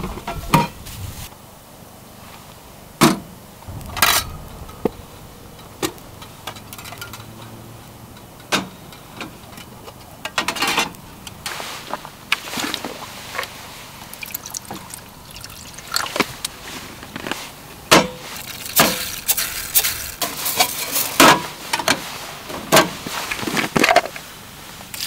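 Scattered knocks and clinks of camp cookware and gear being handled, then water poured from a plastic bottle into an aluminium mess tin of rice near the end.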